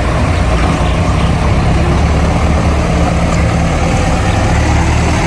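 Backhoe loader's diesel engine running steadily, with a deep, even hum.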